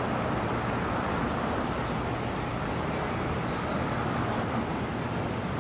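Steady city street traffic noise: car engines and tyres blending into a constant din.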